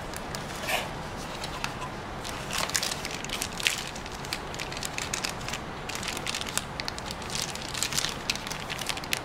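Thin plastic bag crinkling and crackling as hands handle it, in dense irregular crackles from about two and a half seconds in. A single louder rustle from the cardboard box comes near the start.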